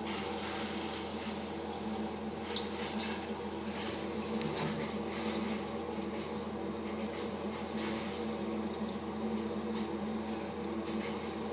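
Aquarium filter running in a turtle tank: a steady electric hum with water trickling and bubbling, and a few faint ticks.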